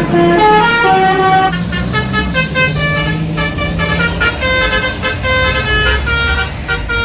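Bus telolet horn playing a quick melody of short stepped notes over a low engine rumble, which cuts off about a second after the end.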